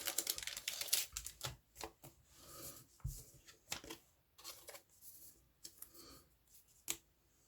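Pokémon trading cards being handled and sorted by hand: a dense rustle of card and packaging for the first second or so, then scattered flicks, taps and short rustles.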